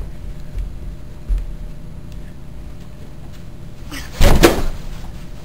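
Faint thuds of footsteps coming down carpeted stairs, then about four seconds in a sudden loud crash and scuffle as one person tackles another.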